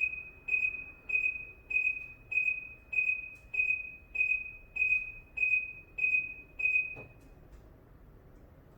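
UD Trucks (Nissan Diesel) factory left-turn alarm beeping: a single high electronic tone repeated about one and a half times a second, each beep fading quickly. It stops about seven seconds in.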